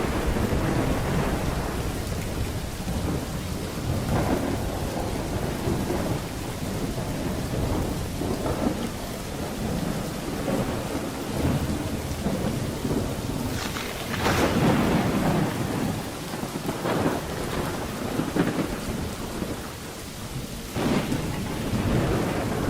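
Steady rain falling through a thunderstorm, with rolling thunder rumbling throughout; the loudest peal, with sharp crackles, comes about two-thirds of the way through.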